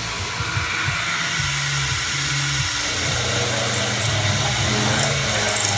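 A machine tool running steadily while machining metal, a low hum under a broad hiss, with a few short high ticks from about four seconds in.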